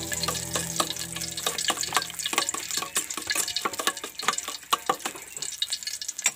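Hot cooking oil crackling and spitting in a wok, a dense run of sharp, irregular pops, with soft background music fading out in the first couple of seconds.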